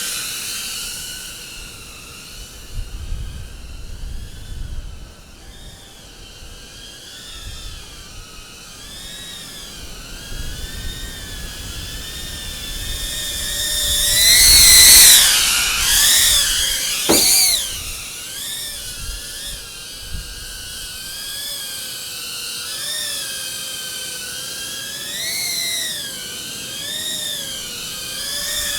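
Small FPV cinewhoop quadcopter's motors whining, the pitch wavering up and down with the throttle. It grows louder as the drone passes close about halfway through, then gives a sudden sharp dip in pitch.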